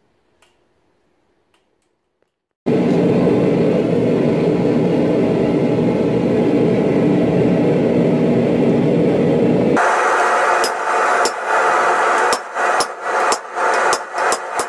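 After a couple of seconds of near silence, a steady loud rushing noise of the forge running starts suddenly. Near the end, a hammer strikes hot steel on an anvil in a run of sharp blows, about two a second.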